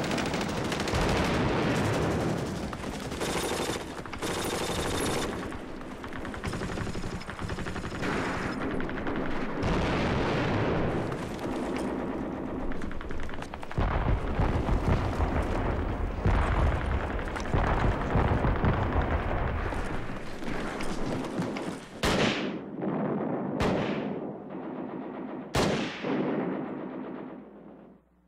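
Battle gunfire: dense rifle and machine-gun fire, with heavy deep booms about halfway through. Near the end it thins to three single shots, each with a ringing echo.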